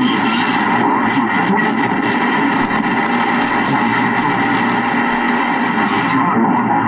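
Drake 2-B ham-band receiver playing from its speaker with the beat frequency oscillator switched on: steady band noise and static mixed with several steady heterodyne whistles from signals on the band.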